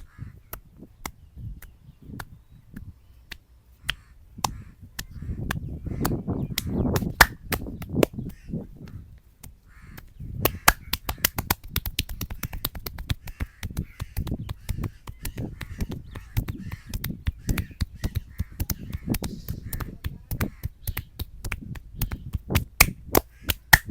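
Hands massaging a man's head: a stretch of heavy palm rubbing on the scalp, then quick irregular slaps and taps of the hands on the head, several a second.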